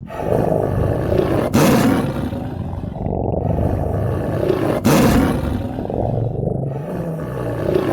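Tiger roaring and growling in long, deep, rough calls. New loud roars start abruptly about a second and a half in and again near five seconds.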